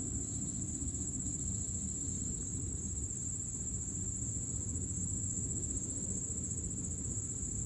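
Crickets trilling steadily in the background, one high, continuous, finely pulsing note, over a low rumble.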